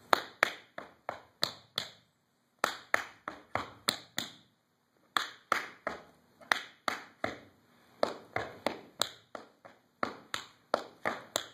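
Tap shoes on a wooden stage floor: an unaccompanied tap combination of brushes, toes, heels and scuffs, sharp metal taps in quick runs broken by brief pauses.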